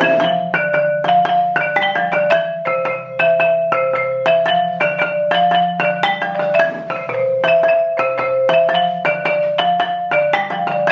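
A child playing a xylophone-type mallet instrument: separate struck notes about two a second, stepping up and down among a few pitches, as in practising scales.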